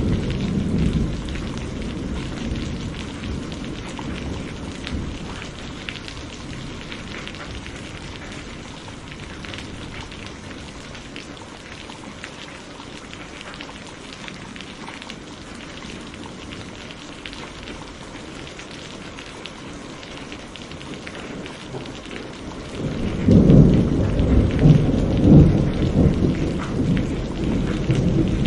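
Steady rain falling, with thunder: a low rumble dies away over the first few seconds, and about 23 seconds in a new, louder roll of thunder starts.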